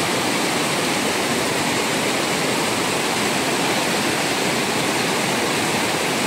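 A shallow river rushing steadily over rocks in rapids, the water running with a strong current.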